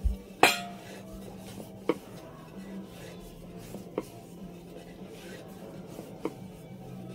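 Wooden rolling pin rolling out a stuffed paratha on a wooden board, with sharp knocks as the pin and hands bump the board: the loudest about half a second in, then a few more every two seconds or so. A steady low hum runs underneath.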